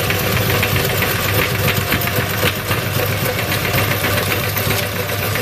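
Motorised meat grinder running steadily while grinding maggots: a continuous motor hum with a dense, fast rattle of clicks.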